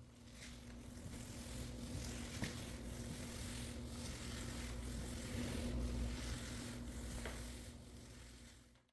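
Floor buffer running steadily while screening an engineered wood floor, a low motor hum that fades in and out.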